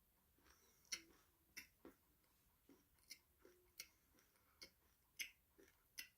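Close-up chewing of a crunchy snack: about eight sharp, brief crunches spread irregularly, one every half second to a second.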